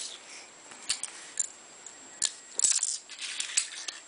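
Plastic Lego bricks clicking and rattling as they are handled and picked up: a few sharp separate clicks, then a quick cluster about two and a half seconds in.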